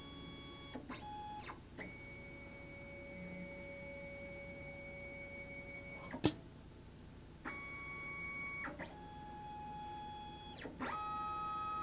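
A STEPCRAFT desktop CNC's axis stepper motors whining through a series of moves as the automatic tool changer picks up a tool from the rack, each move's pitch rising as it starts and falling as it stops. There is a single sharp click about six seconds in, when the spindle is down at the tool rack.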